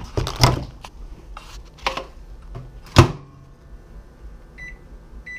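A few knocks of handling, the loudest a sharp thud about three seconds in, then near the end two short high beeps from a microwave oven's keypad as its buttons are pressed.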